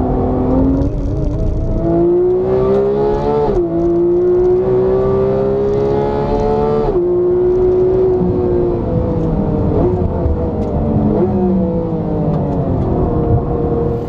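Porsche 991 GT3's flat-six with a Cup exhaust, heard from inside the cabin on a hard lap. The engine revs up through two quick upshifts, about three and a half and seven seconds in, then winds down under braking, with two short throttle-blip downshifts near ten and eleven seconds.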